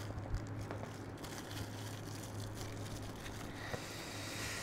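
Faint crinkling and rustling of a thin plastic packaging bag being handled, with a few small ticks, over a steady low electrical hum.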